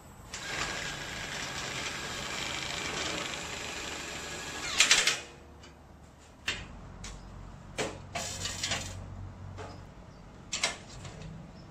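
Cordless impact wrench running steadily for about four and a half seconds, ending in a short, loud burst about five seconds in. Then come a few scattered clicks and knocks of power tools being handled.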